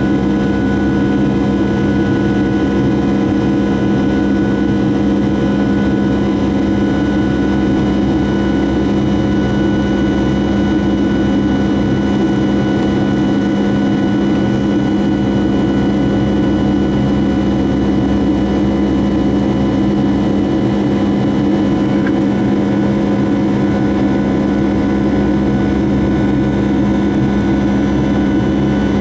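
Boeing 757-300 cabin noise in flight: the jet engines and airflow make a steady, loud low drone, with several constant whining tones above it that do not change.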